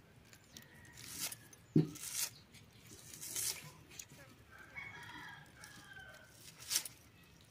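A rooster crows once about halfway through. Around it come several short crisp cutting sounds as a small red onion is sliced against a boti blade, and one dull knock about two seconds in.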